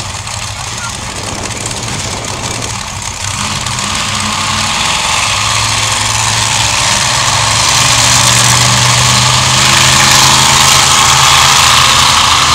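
Monster truck engines running as the trucks drive around a dirt track, with a steady engine note that grows louder over the first eight seconds or so as they come closer, then holds.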